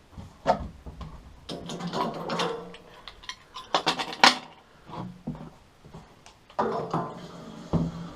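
Irregular clanks, knocks and rattles of metal objects being handled, with a louder cluster about four seconds in and two more sharp knocks near the end.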